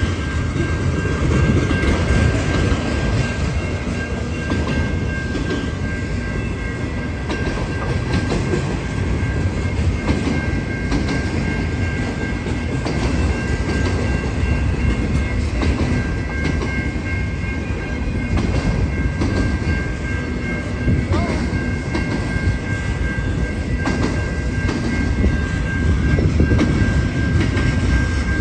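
Freight train cars, gondolas and autoracks, rolling past at close range: a continuous rumble and clatter of steel wheels on the rails, with a thin steady high tone over it.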